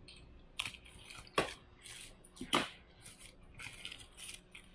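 Thin plastic shipping bag crinkling and rustling in a string of short bursts, a few sharper than the rest, as it is torn open and pulled back off a small cardboard box.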